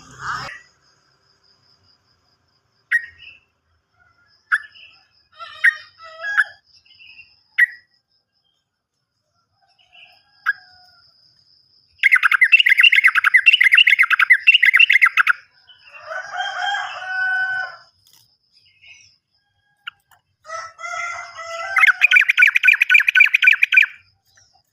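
Yellow-vented bulbul song: scattered short chirps, then two long bursts of fast, bubbling trill, with a lower warbled phrase and chattering between them.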